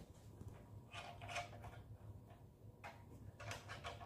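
Faint, scattered handling sounds, light rubs and knocks, as a wooden miter gauge extension is fitted against a metal miter gauge on a saw table.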